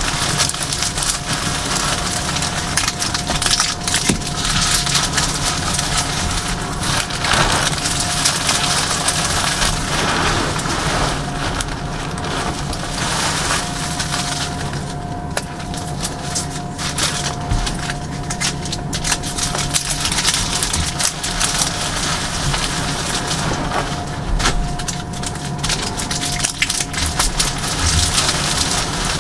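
Hands crushing and crumbling dried reformed gym chalk, breaking blocks and squeezing chunks into powder: continuous crunching with dense crackling.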